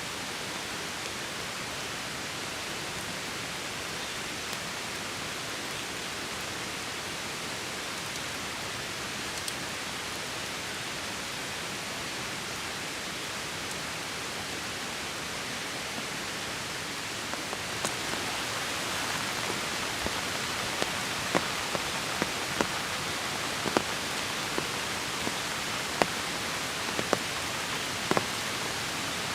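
Heavy rain falling in a steady hiss. A little past halfway it grows louder, and single drops start striking close by as sharp, scattered taps.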